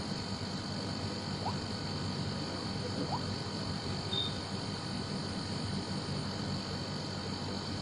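Steady background ambience: a continuous high drone like insects, with a few faint short rising chirps and one brief high peep about four seconds in.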